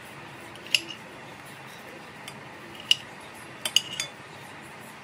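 Metal cutlery clinking against a ceramic plate: a few sharp, briefly ringing clinks, one about a second in, one near the middle, then a quick run of three.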